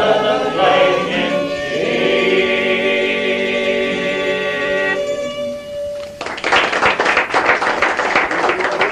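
Male voices singing in close harmony with melodeon and guitar, ending a song on a long held chord about five seconds in, with one note lingering a moment longer. Then the audience applauds.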